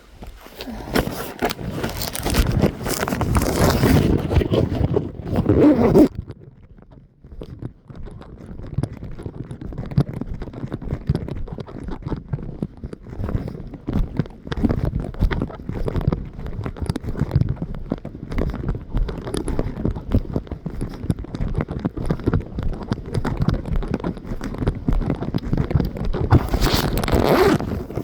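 Loud scraping and rustling close against the microphone, with wind noise. It is strongest for the first several seconds and again near the end, with lighter crackly rubbing in between.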